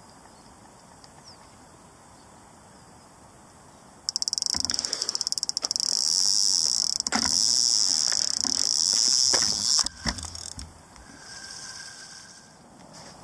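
Electronic carp bite alarm going off in a full run: starting about four seconds in as rapid bleeps that merge into a continuous high tone, cutting off abruptly about six seconds later, with a few knocks as the rod is lifted from the pod. A carp has taken the bait on the left rod and is running with it.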